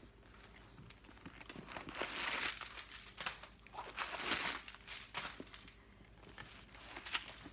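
Tissue-paper stuffing crinkling and rustling as it is pulled out of a new leather handbag, in several bursts, the loudest about two and four seconds in.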